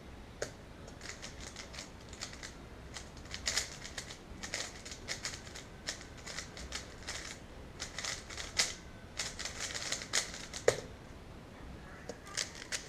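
3x3 Rubik's Cube being turned fast in a speedsolve: rapid plastic clicking and clacking of the layers in quick runs, with one sharper clack about three-quarters of the way through.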